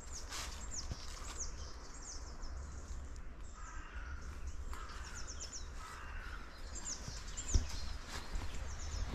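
Birds singing: many short, high chirps that fall in pitch, repeating throughout, with lower warbling notes in the middle, over a steady low rumble and a single thump about three quarters of the way through.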